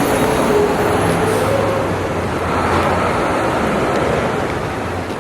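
Heavy sanitation trucks running in street traffic: a loud, steady rumble of diesel engines and road noise, with a low drone settling in about a second in.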